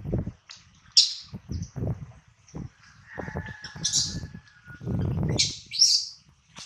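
Baby macaque crying in several short, high-pitched squeals, with low muffled noises between them.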